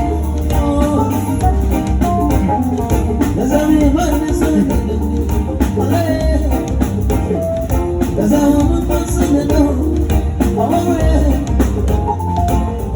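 A live band playing a song with a singing voice over a steady bass beat.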